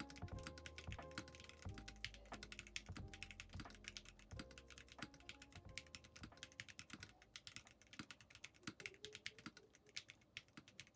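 Rapid typing on a mechanical keyboard fitted with Keygeek Mingding linear switches by Moyu: a dense, uneven run of keystroke clacks. Soft background music is underneath at first and fades out about halfway through.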